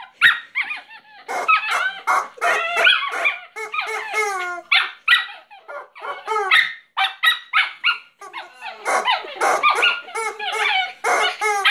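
Small dog barking and yipping excitedly in a near-unbroken run with brief pauses, mixed with squawks from a rubber chicken toy as he bites and squeezes it.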